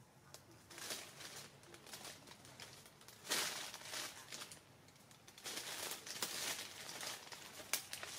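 Irregular bursts of rustling and crinkling, loudest a little over three seconds in, with a sharp click near the end.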